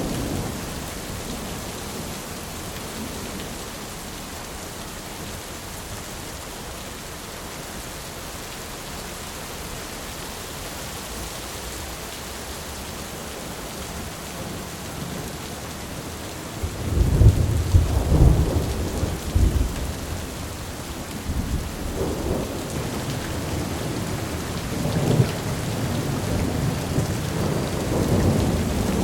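Thunderstorm: steady rain falling, with a heavy roll of thunder breaking out a little past halfway and further rumbles following near the end.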